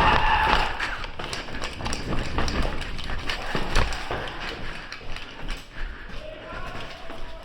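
Quick, irregular footsteps and knocks on a hard floor, with scattered sharp taps.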